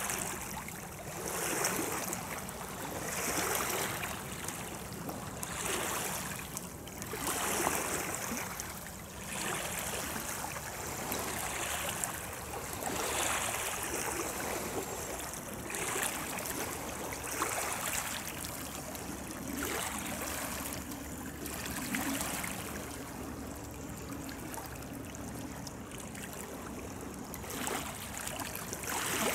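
River water lapping at the shore, a steady wash that swells every second or two.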